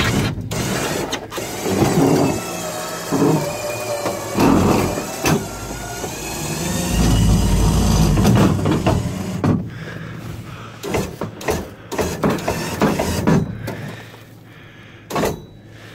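A powered shack-lift motor whines steadily while a wooden-framed ice shack is drawn onto a pickup bed, with irregular clunks and scrapes from the shack's frame meeting the truck. The whine stops about ten seconds in, leaving scattered knocks.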